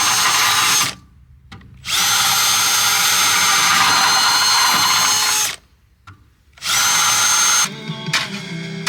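Power drill boring through the ceramic honeycomb core of a diesel particulate filter, run in three bursts with short pauses between them, the motor whine rising each time it starts. Music comes in near the end.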